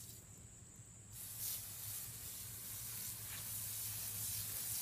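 Garden hose pistol-grip spray nozzle hissing as it sprays water onto a dog's coat. The spray comes on about a second in and then runs steadily.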